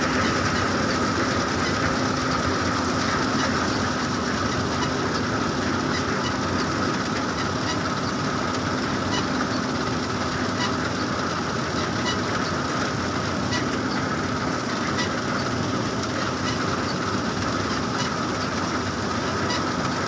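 John Deere W70 combine harvester running under load while cutting rice: a steady mechanical drone with a high whine and a light rhythmic clatter from the header and threshing machinery.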